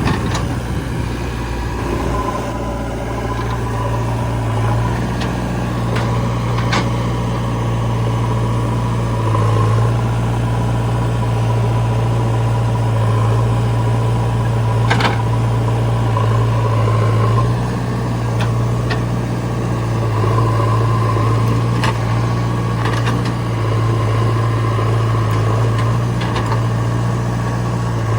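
Diesel engines of a backhoe loader and a tractor running steadily, with a few short, sharp knocks.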